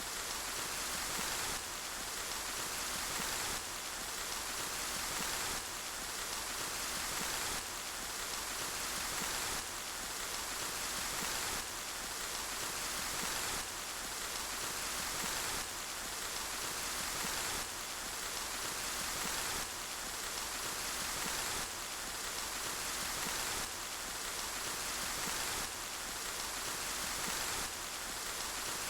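Steady rain falling, an even hiss of drops with a slight step in loudness about every two seconds, as from a short recording looped over and over.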